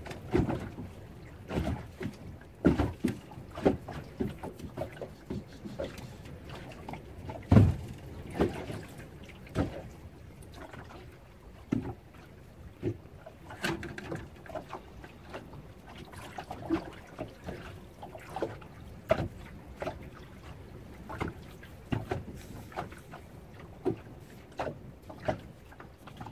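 Choppy water slapping against the hull of a small boat, with irregular knocks and splashes of varying strength; the loudest comes a little over seven seconds in.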